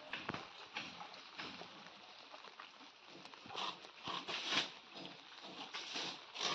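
A cow munching its feed: a string of irregular, crisp crunching noises, loudest about four and a half seconds in.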